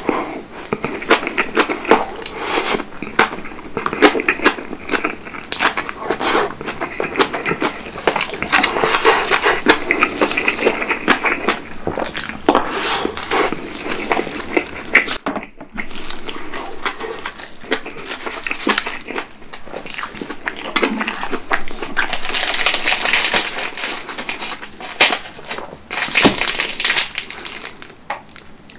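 Close-miked chewing of a mouthful of napa cabbage kimchi and rice: wet crunching and smacking with a short pause about halfway.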